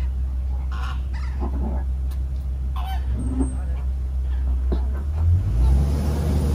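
Safari truck's engine running with a steady low drone, picking up slightly in pitch near the end as the truck moves on. Short honking calls from a flock of greater flamingos on the water break through a few times.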